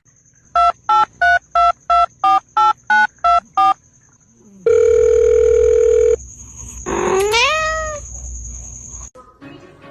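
A touch-tone phone keypad being dialed, eleven quick beeps, followed by a steady tone for about a second and a half. Then an animal gives one rising cry.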